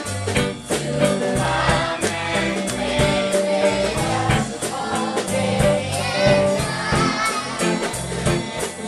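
A group singing a song from a children's musical together, with band accompaniment and a steady beat.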